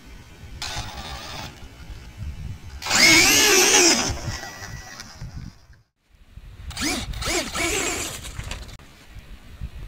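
High-pitched whine of a Traxxas Slash RC truck's Turnigy 2650kv brushless motor, rising and falling in pitch as it is throttled in bursts; the loudest burst comes about three seconds in. A low rumble of wind on the microphone runs underneath.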